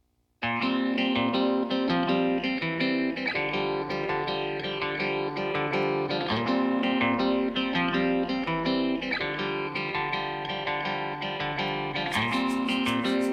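Background music led by plucked guitar, starting about half a second in, with a quick ticking beat joining near the end.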